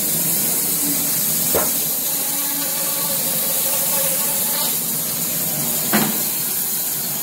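Steady hiss with a low hum under it, and two short knocks about four seconds apart as chunks of rotten box elder burl are pulled off the log by hand.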